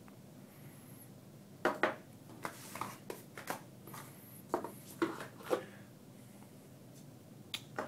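Hands handling the box and its contents on a table: a string of light knocks and clicks with a little rustling, over about four seconds, then quiet.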